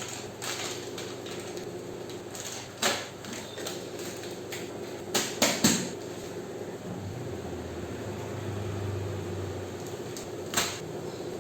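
Kitchen utensils and items being handled and set down in a drawer: scattered sharp clacks, one about three seconds in, three in quick succession around five seconds, and one more near the end, over a steady background hum.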